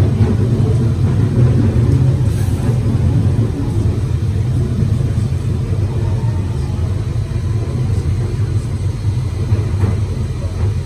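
Interior running noise of a London Underground 1992 Stock train in tunnel: a loud, steady rumble of wheels on rail heard inside the carriage.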